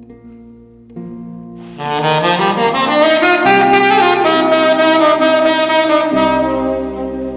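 Saxophone playing a slow improvised line over low held tones. It comes in loudly about two seconds in, rising into a long held note, and eases off about six seconds in.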